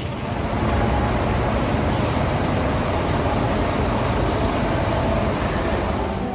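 Steady street noise dominated by the low rumble of passing road traffic.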